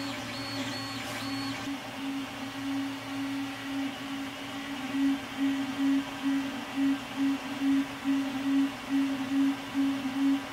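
Creality Ender 3 3D printer's stepper motors whining at one low pitch as the print head moves, the tone starting and stopping several times a second and growing stronger about halfway through. For the first two seconds a higher whine also pulses along with the undamped motors. After that the X and Y steppers run with vibration dampers fitted.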